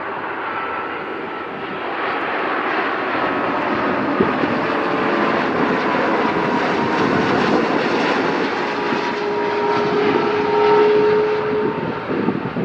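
Airbus A330 twin-jet on approach with its landing gear down, its engine noise swelling steadily as it comes closer. A steady whine enters about halfway through as the aircraft nears.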